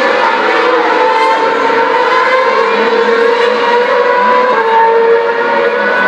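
Several Formula One cars' 2.4-litre V8 engines running at high revs, heard together as a continuous high whine whose pitch slowly rises and falls.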